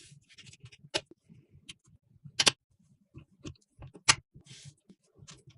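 Computer parts being handled and fitted during a PC build, making scattered sharp clicks and taps. Three louder clicks come at about one-and-a-half-second intervals, with many fainter ticks in between and a brief soft hiss.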